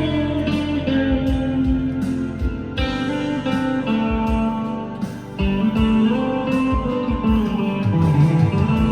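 PRS SE 245 electric guitar with humbucker pickups played through an amp's clean channel with reverb and delay, picked notes and chords ringing into one another with a twangy clean tone. Fresh chords are struck about three seconds and five and a half seconds in.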